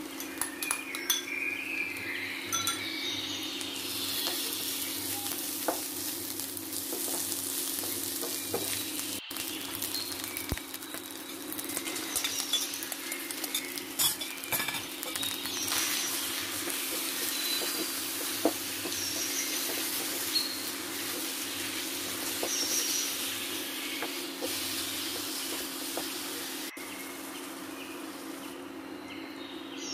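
Onions, garlic-ginger paste and then marinated minced beef sizzling in hot oil in a frying pan, stirred and scraped with a spatula that clicks against the pan. Near the end the sizzle dies down as a cup of water is added.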